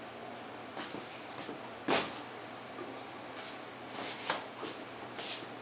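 A few short, sharp knocks and rustles against quiet room hiss: one clear knock about two seconds in, and a quick run of smaller clicks near the end.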